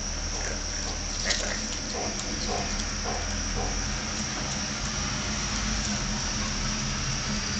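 Steady high-pitched cricket trill over a low hum, with a few soft clicks and ticks in the first half.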